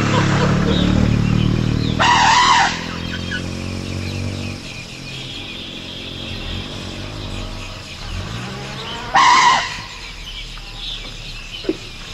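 A vehicle engine running, its pitch falling over the first four seconds or so, with two short, loud, shrill bursts, one about two seconds in and one about nine seconds in.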